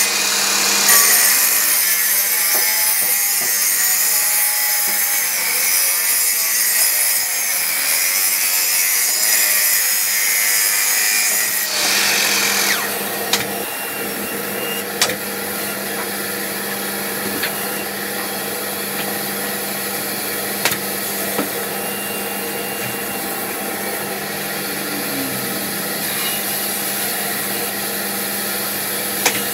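Miter saw running and cutting through a thick glued-up strip board, the blade sound wavering as it works through the wood, stopping about twelve seconds in. After that a steady shop hum remains, with a few light knocks as the cut piece is handled.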